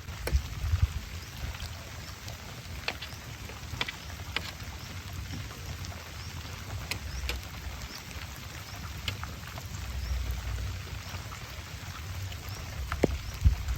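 Rain falling, with individual drops striking close by as scattered sharp ticks over a steady hiss and a low rumble underneath.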